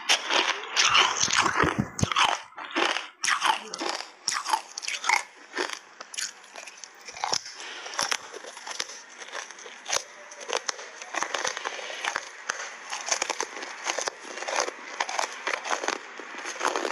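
Hard ice coated in matcha powder being bitten and crunched in the mouth, close up: a run of loud cracking bites in the first few seconds, then continuous crunching and chewing as the ice breaks into smaller pieces.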